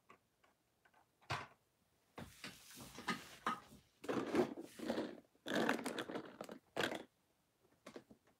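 Quiet, off-mic handling noise: a click, then several seconds of clattering, knocking and rustling, like plastic cases and die-cast toy cars being moved about.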